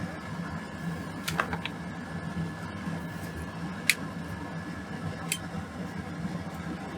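Bench fume extractor fan running with a steady hum. A few short, sharp clicks sound over it: a quick cluster about a second in, the loudest near the middle, and one more a little later.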